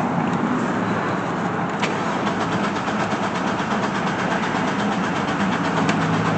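Chevy Blazer ZR2's 4.3-litre V6 being cranked by the starter: a click about two seconds in, then a fast, even cranking rhythm, and the engine does not catch, because no fuel is reaching it.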